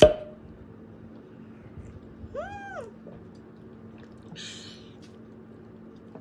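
A sharp knock right at the start, then a cat meowing once about two and a half seconds in, a short call that rises and falls in pitch.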